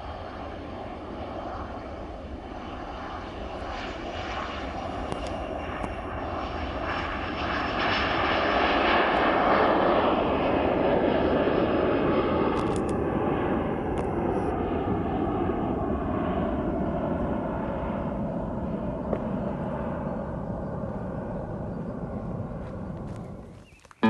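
Airliner passing by: engine noise builds to its loudest about ten seconds in, then slowly fades with a falling pitch as it moves away.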